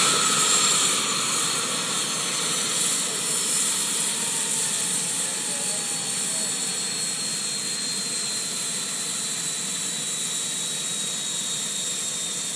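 Jakadofsky model gas turbine in a scale RC helicopter spooling down: a high whine sliding slowly down in pitch over a steady hiss, getting gradually quieter.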